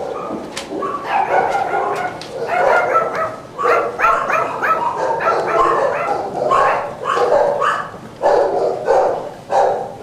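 A dog barking repeatedly, in quick runs of short barks.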